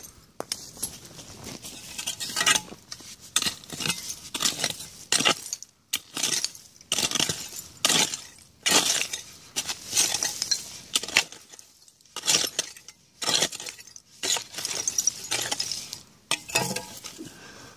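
A small hand digging tool scraping and raking through soil in repeated strokes, about two a second with short pauses, dirt flung aside and a light clinking of buried glass and debris.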